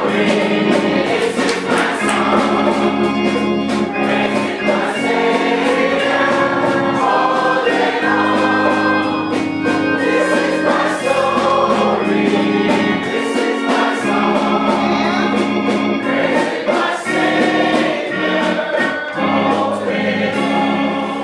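Church choir singing a gospel hymn with organ accompaniment, sustained chords changing every few seconds.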